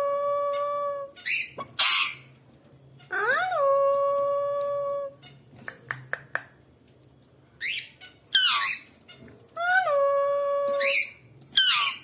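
Alexandrine parakeet calling: three long calls, each rising and then holding one steady pitch for a second or two, at the start, about three seconds in and about ten seconds in. Each long call is followed by short, harsh, falling squawks, and there are a few quick clicks in the middle.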